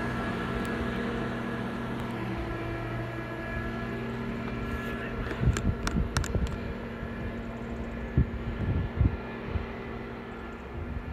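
A diesel train's engine drones steadily, easing off after about two seconds, then a run of irregular knocks and clicks.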